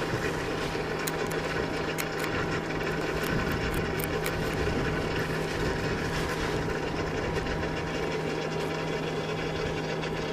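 A motor running steadily: an even hum with a constant low drone. A few faint light clicks come in the first half.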